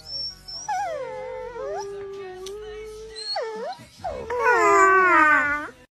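Two dogs howling close to the microphone: a long howl that slides down and holds in the first half, a short yelp-like break, then a louder wavering howl near the end.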